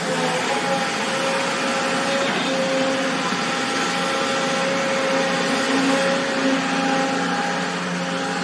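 JCB tracked excavator working: a steady engine whir with a held whining tone over it.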